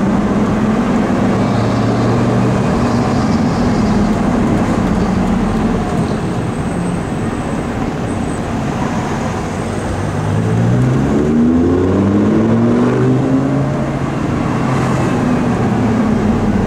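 Lamborghini Gallardo's V10 engine heard from inside the cabin, running at low revs in slow traffic. About ten seconds in it revs up in rising pitch for a few seconds, then settles back to a steady low drone.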